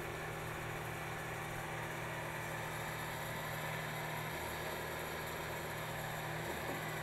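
An engine running steadily at idle, a constant hum with a deeper low tone coming in about four seconds in.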